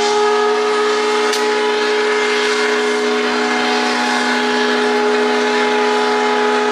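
Steamboat's steam whistle blowing one long, steady chord of several notes.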